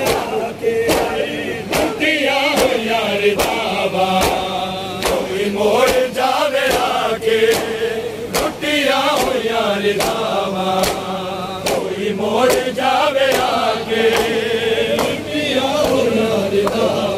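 A crowd of men chanting a Punjabi noha together, over a steady beat of hands slapping on chests (matam), a little more than one stroke a second.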